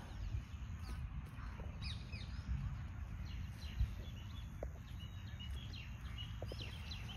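Small birds chirping outdoors: many short, high calls that slide downward, scattered throughout, over a steady low rumble.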